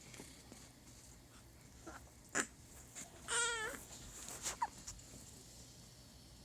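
Premature newborn making small vocal noises: a short sharp squeak, then a brief wavering high-pitched whimper about halfway through, then a couple more short squeaks.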